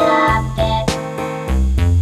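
Instrumental background music: a keyboard melody over a stepping bass line with a steady beat.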